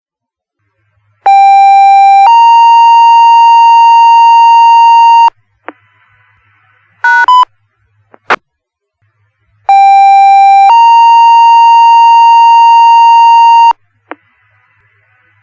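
Fire department two-tone sequential pager tones over the radio: a short lower tone steps up to a higher tone held about three seconds, and the pair is sent twice. Between the pairs come short radio beeps, a click and faint static. This is the dispatch page that alerts the volunteer firefighters to a call.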